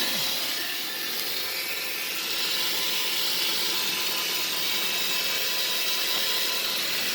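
Roomba robot vacuum running, a steady whirring hiss with a faint even hum.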